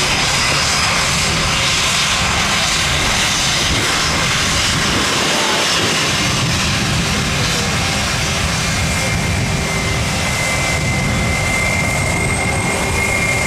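Jet airliner engines running close by: a loud, steady roar that stays level throughout. A thin steady whine joins it over the last few seconds.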